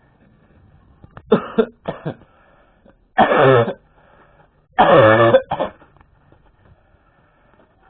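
A man's coughing fit: a few smaller coughs, then two heavy, hoarse coughs a second and a half apart, each dropping in pitch, with a short cough after the last. He is coughing from choking on something, made worse by his asthma.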